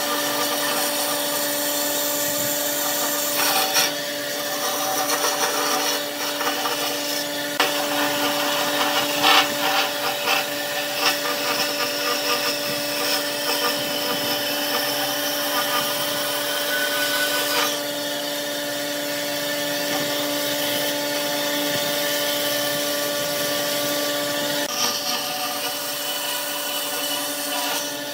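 Bandsaw running with a steady motor hum while its blade cuts through a block of wood, the cutting noise rising and falling as the wood is fed and turned.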